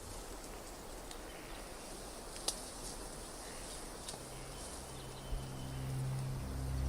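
Faint natural outdoor ambience, a soft hiss with a couple of small ticks. About four seconds in, a low sustained drone from the documentary's music score fades in and swells.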